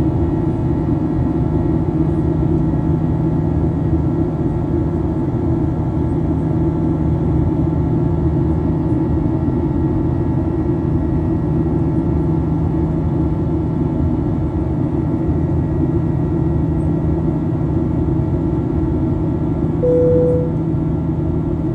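Steady drone of a vehicle heard from on board, with a constant low hum, and a single short beep about twenty seconds in.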